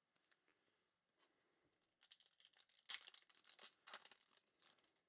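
A foil trading-card pack being torn open and its wrapper crinkled, a quick run of crackling that starts about two seconds in and lasts a few seconds.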